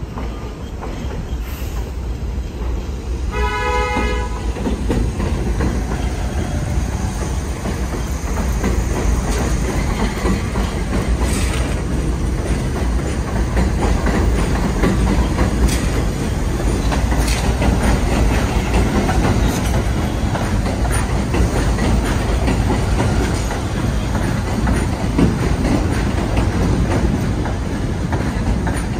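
A 1 train of R62A subway cars approaching and running past on elevated track. A short horn sounds about three seconds in. Then a steady rumble of wheels on rail grows louder as the cars go by, with occasional sharp clicks.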